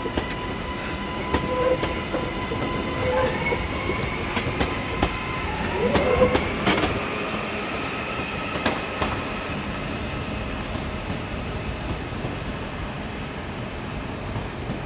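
Train moving along the track with a steady rumble, its wheels clicking over rail joints. High whining tones rise in pitch partway through and peak loudest around six to seven seconds in.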